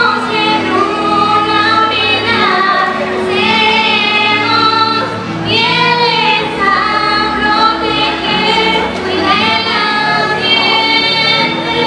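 Two girls singing a slow ballad live together over a sustained instrumental accompaniment.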